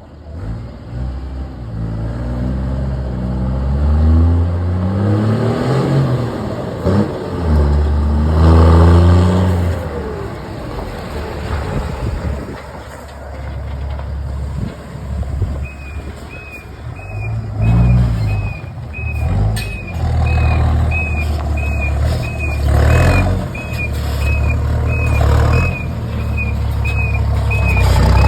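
Ford Cargo 2422 truck's diesel engine with a straight-through exhaust, revving up and down as it maneuvers. From about halfway through, a reversing alarm beeps steadily, about one and a half beeps a second, while the engine keeps running.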